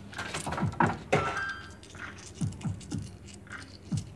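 Lady Luck Around The Clock fruit machine: a quick run of clicks and clunks with short electronic tones while its credit meter climbs. The reels are set spinning near the end.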